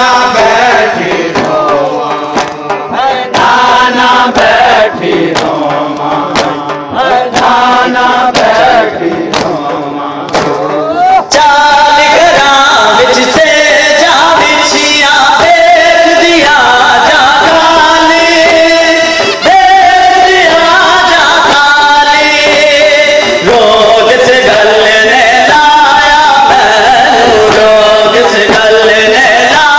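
A male noha reciter chants a Shia mourning lament (noha) into a microphone. About eleven seconds in, the chanting grows fuller and louder.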